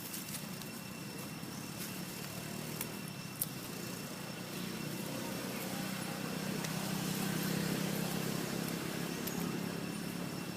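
A motor vehicle running on a road, its low engine hum swelling to a peak about three-quarters of the way through and then easing as it passes. A faint steady high whine runs underneath, with a couple of light clicks near the middle.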